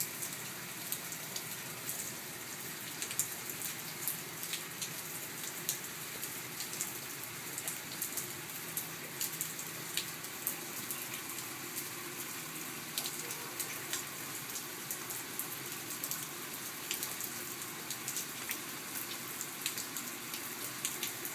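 Steady rain falling, with many separate drops ticking irregularly over the even hiss.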